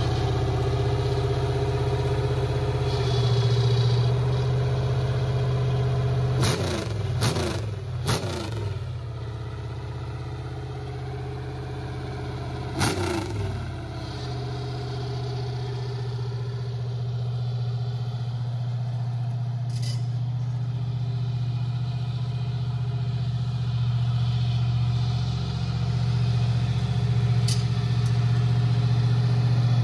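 Small-block Chevy 350 V8 in a riding lawn mower, running through tall open exhaust stacks at a steady low speed. It is revved in three quick blips a little after six seconds in and once more around thirteen seconds.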